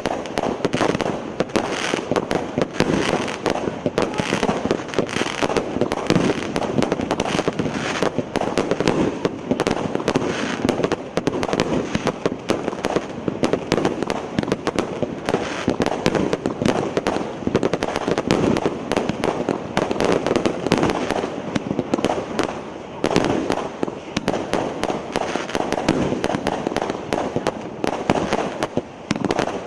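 A 25-shot consumer firework battery (cake) firing: a dense, unbroken run of launches, pops and bangs.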